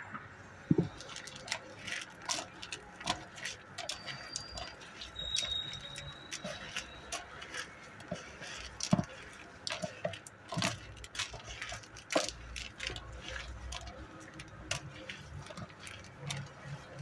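Irregular light clicks and taps of kitchen utensils and dishes, with two brief high tones about four and five seconds in.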